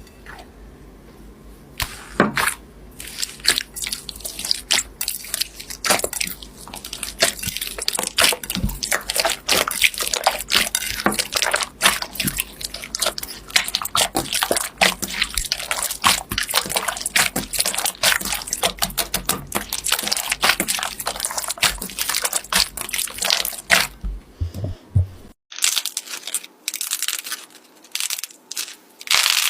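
Slime being squeezed and poked by hand, a dense run of wet clicks and pops starting about two seconds in. After a short break near the end, a sharper, higher crackling begins.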